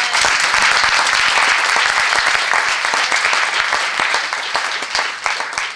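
A congregation applauding: dense, steady clapping that slowly fades and thins into scattered claps near the end.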